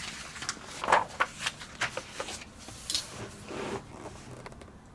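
Paper rustling and soft clicks as pages of a printed code book are handled and turned, in short uneven bursts.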